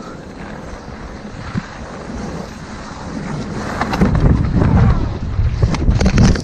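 Wind rushing over the microphone and skis scraping on snow during a fast downhill ski run. It grows louder about four seconds in, with a few sharp scrapes near the end as snow sprays up.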